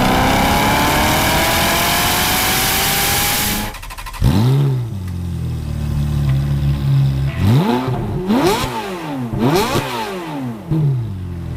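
Corvette ZR1's supercharged V8 accelerating hard, its pitch climbing steadily for about four seconds. Then, after a cut, a Ferrari F430 Scuderia's V8 is revved while parked: a series of sharp rev blips that rise and fall quickly, several close together near the end.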